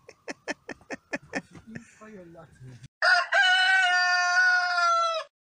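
A rooster crowing once: a single long call of about two seconds that starts about three seconds in and cuts off sharply.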